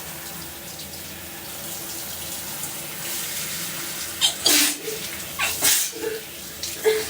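Shower water running steadily, then a woman sneezing twice in quick succession in the second half, with a smaller sound near the end.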